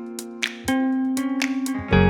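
Background music: guitar-led instrumental with a steady ticking beat, a new chord coming in partway through and a fuller, louder section starting near the end.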